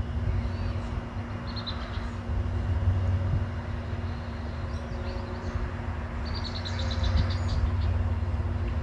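Steady low outdoor rumble with a faint steady hum underneath. A small bird twice gives a quick run of high chirps, briefly about a second and a half in and for about a second near six and a half seconds in.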